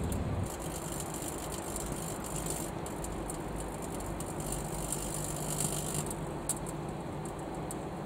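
Microwave oven running with a steady hum, light bulbs and a metal halide arc lamp glowing with plasma inside it, with a few faint ticks scattered through.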